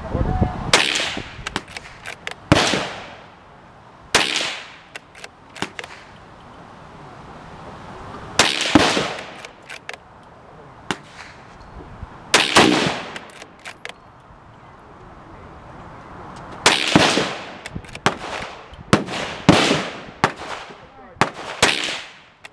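Gunshots at an outdoor shooting range: about nine loud reports at irregular intervals, each trailing off in an echo, with many fainter, sharper cracks from other firing points in between.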